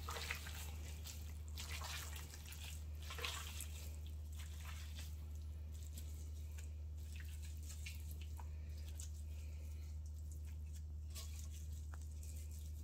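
Tender smoked pork scotch being pulled apart by a gloved hand: faint, soft wet squelching and tearing of the meat, over a steady low hum.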